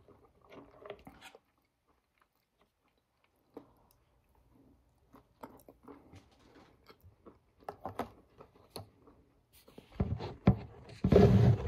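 A person chewing and eating food close to the microphone, with soft crunches and scattered small clicks, and a louder burst of noise near the end.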